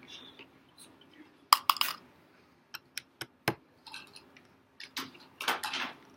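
Laptop disassembly handling noise: a run of sharp little clinks, like tiny screws and a small screwdriver set down on a hard surface, then a few seconds of scraping and rustling as the parts are handled.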